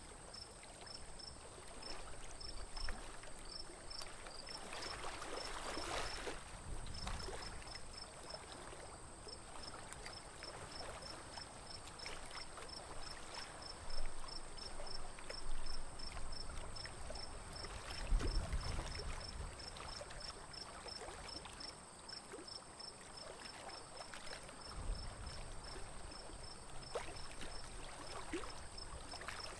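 Lake water lapping and splashing against a small wooden boat, with bare feet trailing in the water, in short irregular splashes. A couple of dull low bumps come partway through.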